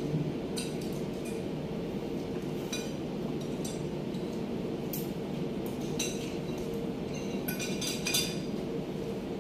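Spoon and fork clinking now and then against plates as people eat, a dozen or so light clinks over a steady low hum.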